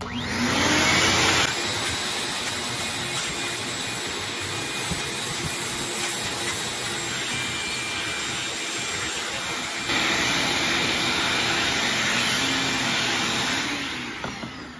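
Vacuum cleaner with a dust-brush nozzle switched on, spinning up and running steadily as it sucks sanding dust off a sanded oak panel. It gets louder about ten seconds in and winds down near the end as it is switched off.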